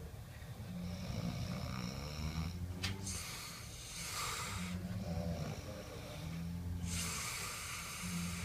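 A person snoring: low, rattling snores alternating with long hissing breaths, about two full breath cycles.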